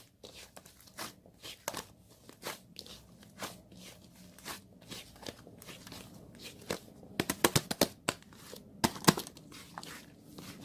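Clay slime being squeezed and pressed by hand, giving irregular crackling clicks and snaps, with a quick run of loud pops about seven seconds in and another just after nine.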